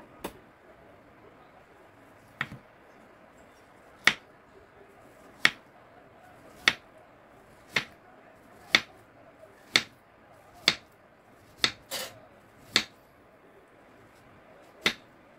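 Kitchen knife slicing a peeled dragon fruit into rounds, the blade knocking down on a wooden cutting board: about a dozen sharp taps, roughly one a second.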